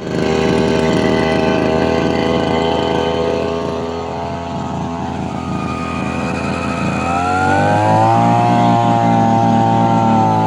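Brush cutter engine running steadily on a trial run of its cutting blade, its speed rising about seven seconds in and holding higher.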